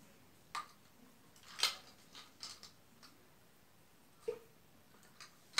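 Small plastic toy-game pieces being handled, giving a handful of faint, separate clicks and taps.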